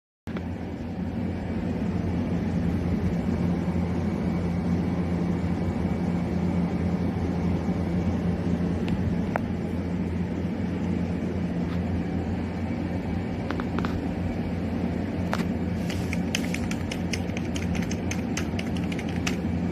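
A steady low hum throughout. From about fifteen seconds in, a quick run of clicks: keys being typed on a membrane keyboard.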